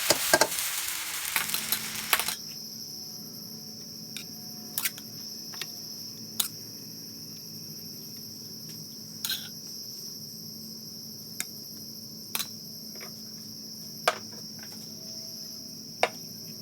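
Spatula clattering and stirring in a sizzling pan for the first two seconds, then a steady high-pitched insect chirr, crickets, over a faint low hum, with a few scattered clicks.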